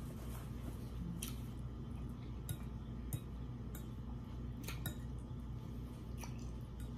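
Quiet eating sounds: chewing and soft squishy mouth noises, and a metal fork stirring and twirling ramen noodles in a glass bowl. The fork makes scattered light clicks against the glass.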